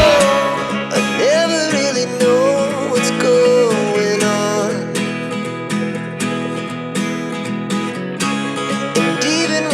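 Background music: an acoustic guitar strumming under a melodic vocal-like line.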